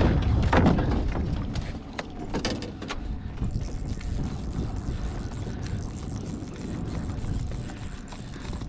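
Low, steady rumble of wind and lapping water around a small fishing boat, with a few sharp clicks in the first three seconds as the rod and reel are handled during a fight with a hooked fish.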